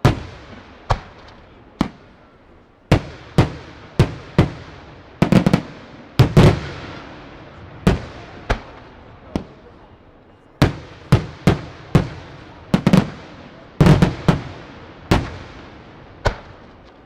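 Aerial firework shells bursting in a display, about two dozen sharp booms at irregular intervals, some in quick clusters, each followed by a rolling echo.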